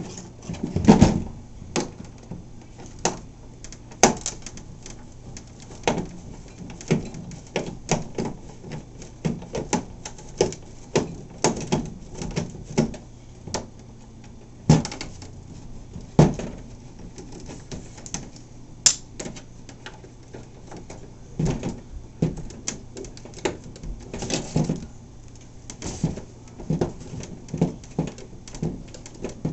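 Small hand tools clicking and scraping against the plastic deck of an RC catamaran hull as its small screws are picked clean and worked loose. The clicks come in an irregular run, with a few louder knocks, over a steady low hum.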